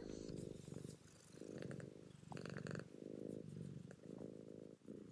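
Domestic cat purring close up, in a steady rhythm of bouts about a second long with brief breaks between them.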